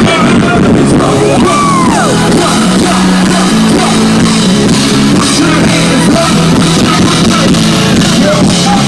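Loud live music through outdoor concert speakers, heard from within the crowd, with a steady bass line changing notes and a few shouts from the audience.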